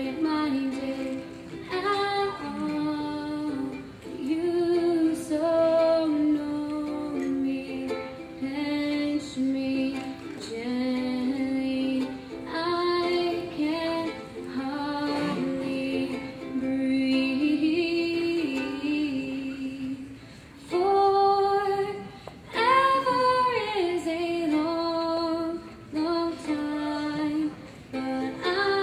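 A girl singing a slow song while strumming chords on a ukulele, her voice carrying the melody in phrases with short breaths between them.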